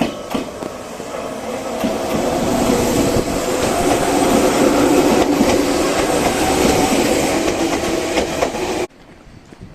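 Toyohashi Railway Atsumi Line local electric train running past, its wheels clattering over the rail joints, growing louder to a peak in the middle and cutting off suddenly near the end.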